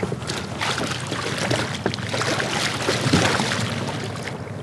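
Water splashing and sloshing, with scattered sharp knocks, as a hooked muskie thrashes beside a kayak during a fumbled netting. The commotion eases off near the end.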